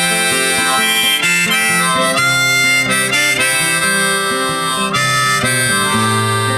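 Background music: an instrumental break in a song, a harmonica playing a melody over acoustic guitar.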